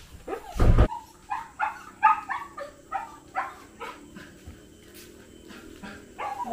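Dog barking and yelping: one loud bark about half a second in, then a quick run of short high yelps, about three a second, that die away after about four seconds.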